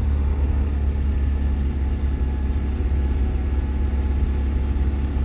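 Steady low drone of a loaded GAZelle van's engine and road noise heard inside the cab, the van labouring up a long hill.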